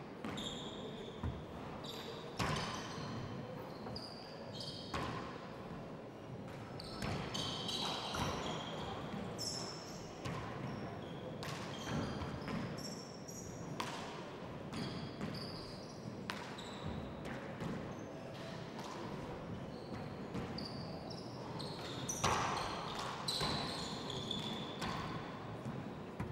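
Handball rally: the hard rubber ball struck by hand and rebounding off the walls and the wooden floor in a string of irregular sharp smacks, with short high squeaks from the players' shoes on the court floor in between.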